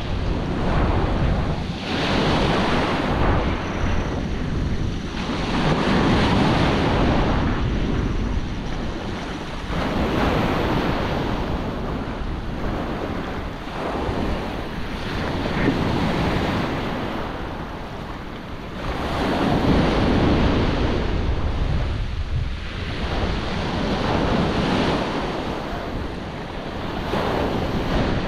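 Small waves breaking and washing up a pebbly beach, surging and fading every few seconds, with wind buffeting the microphone.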